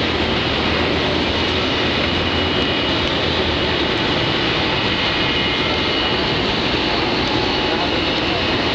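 Steady jet engine noise from taxiing airliners: an even rush with a faint high turbine whine.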